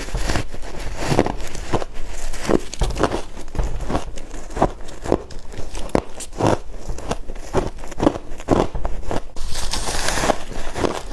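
Freezer frost being chewed: a steady run of crisp, crackling crunches, about two a second, with a softer crinkling hiss near the end.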